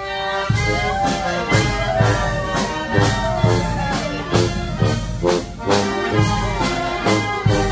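Live brass band with a drum kit playing upbeat dance music: brass melody lines over a steady drum beat of about two hits a second.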